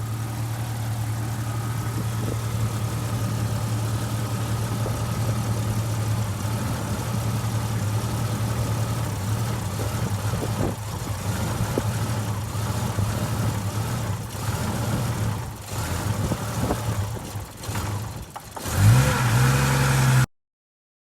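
Jeep Grand Cherokee ZJ engine running, steady at first, then growing uneven with repeated dips in level as it stumbles. This is the misfire that the title puts down to a faulty ignition coil. Near the end it revs up sharply, and then the sound stops abruptly.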